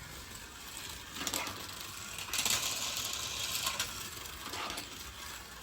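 Light mechanical clicking and whirring, with a stretch of hiss about two and a half seconds in that lasts about a second and a half.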